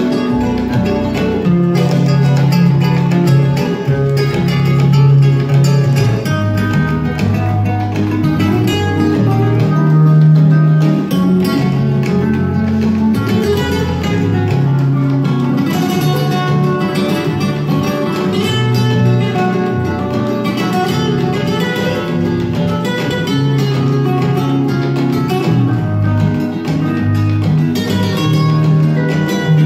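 Guitar music with a bass line, played from a vinyl record on a home-built turntable through the hi-fi's loudspeakers.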